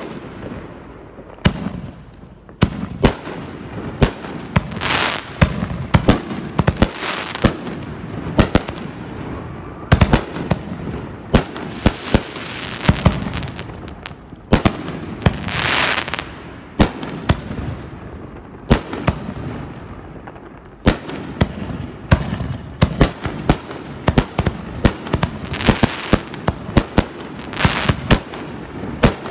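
Consumer aerial fireworks going off in quick, irregular succession: a string of sharp bangs as shells burst overhead, at times several a second, with spells of dense crackling between them.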